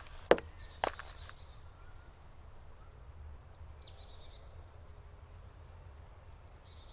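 Forest ambience with birds chirping and a short trill of quick descending notes, over a low steady rumble. Two sharp knocks come in the first second.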